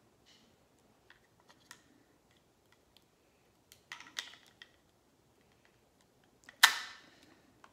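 Small plastic clicks and taps as a fragrance-oil refill bottle is handled and pushed into a plastic plug-in air freshener, with one sharp, louder snap near the end.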